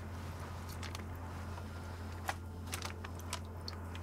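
Scattered small clicks and crackles of hands handling and unpotting aquarium stem plants, over a steady low hum.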